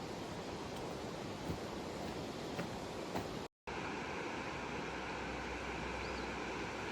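Steady outdoor water noise, with a few faint ticks in the first half. It cuts out for a split second about halfway, then a similar steady rush resumes.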